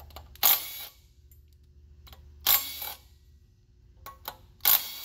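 Cordless impact wrench hammering in three short bursts about two seconds apart, running the bolts out of a Detroit DD15/DD13 diesel's water pump pulley while the free-spinning pulley is held by hand.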